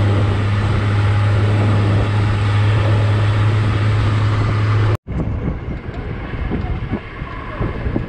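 Vehicle on the move: steady engine and road noise with a strong low hum, cut off abruptly about five seconds in, then quieter irregular knocking and rattling.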